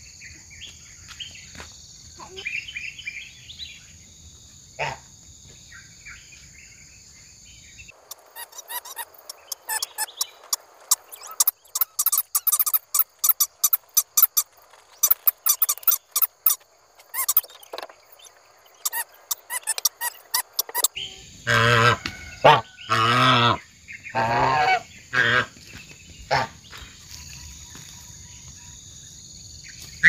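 Forest birds chirping over a steady high insect drone. About eight seconds in this gives way to a long run of sharp clicks and taps. Later come several loud pitched calls, the loudest sounds here.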